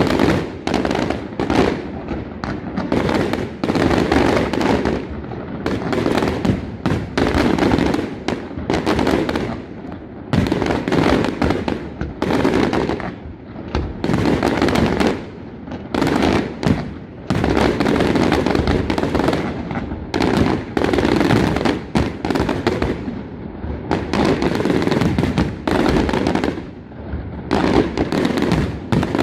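Aerial fireworks display: a dense, continuous barrage of shell bursts, one bang after another with rumbling echoes, easing off only for brief moments.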